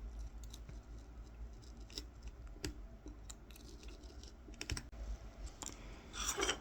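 Tip of a Mora 106 carving knife cutting kolrosing lines into a small wooden coffee scoop: scattered faint clicks and ticks, then a louder scratchy scraping stroke near the end.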